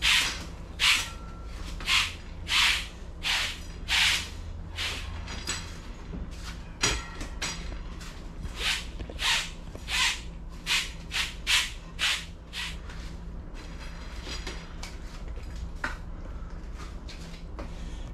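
Wood chips being swept up with a brush: a run of short, brisk brushing strokes, about one every half second to a second, with a pause near the end, over a low steady hum.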